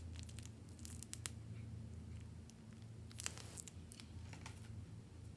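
Faint, scattered clicks and crinkles of a plastic piping bag being squeezed while slime is piped into a glass bowl, with a small cluster of clicks about three seconds in, over a steady low hum.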